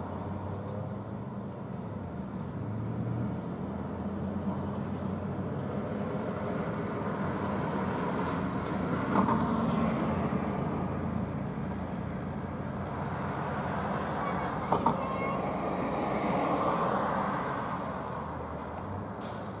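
Street traffic passing close by: engines and tyre noise swell as vehicles go past, among them a pickup towing an open utility trailer and a sedan. Two brief sharp clicks are heard, about 9 and 15 seconds in.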